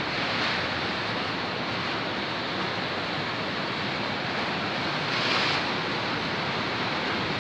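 Freight train of tank wagons rolling past, a steady rush of wheels on the rails, with a brief brighter hiss about five seconds in.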